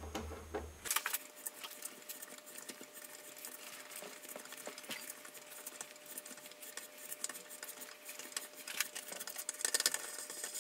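Steel being threaded by hand with a tap and tap wrench for an M8 thread: a dense run of small metallic clicks and scrapes as the tap cuts and is worked back and forth, busiest and loudest near the end. A low machine hum in the first second stops abruptly.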